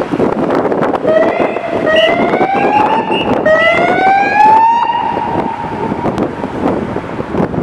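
Emergency vehicle siren sounding about a second in, rising in pitch in three sweeps and then holding high before fading around six seconds in, over a steady rush of street noise.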